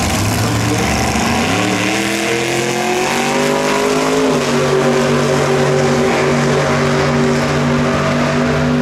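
Drag-racing gasser's engine launching off the line about a second and a half in, its pitch climbing steeply as the car accelerates away. About four seconds in, the pitch steps at a gear shift, then the engine runs on at a steady pitch down the track.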